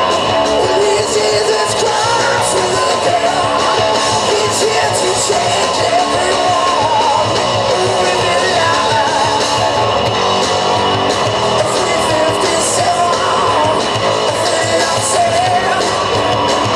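Rock band playing live: electric guitars and drums, with a singer.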